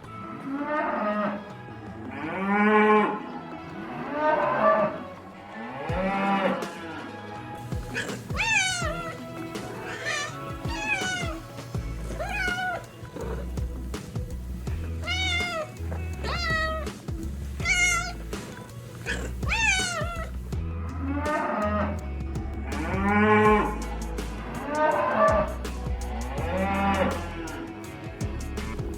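A montage of animal calls: cows mooing in repeated calls, then a run of cat meows, each gliding downward, then more mooing, with music carrying a low bass pulse underneath.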